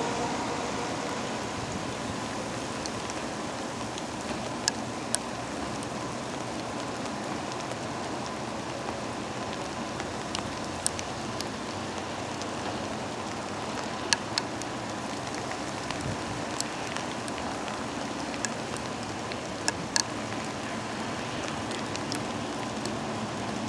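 Heavy rain falling steadily, with scattered sharp taps of single drops striking something close by.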